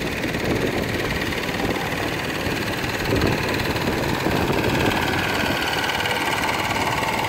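A motor running steadily, with a faint whine that rises slightly in pitch over the last few seconds.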